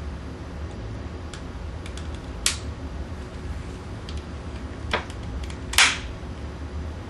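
Sharp clicks of a long-reach utility lighter's igniter: a few faint ticks, then three louder clicks about two and a half, five and six seconds in, the last the loudest, over a steady low hum.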